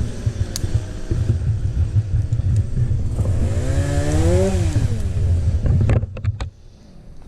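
Two-stroke chainsaw running with a pulsing beat, revved up and back down once about midway, then shut off about six seconds in with a few sharp clicks.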